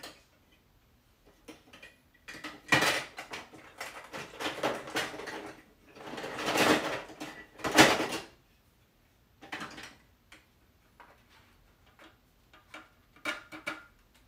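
Plastic marble run pieces clattering and knocking together as hands rummage through a plastic storage bin. The clatter comes in bursts for several seconds, then a few lighter clicks near the end.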